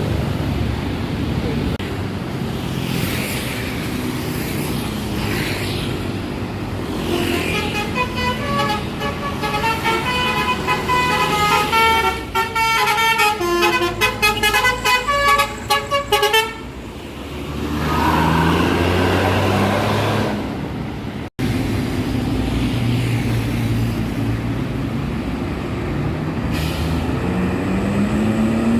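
Bus engines running, then about seven seconds in a telolet basuri musical bus horn plays a quick multi-note tune for about nine seconds before the engine noise takes over again, with an engine revving up near the end. The sound cuts out abruptly for an instant about 21 seconds in.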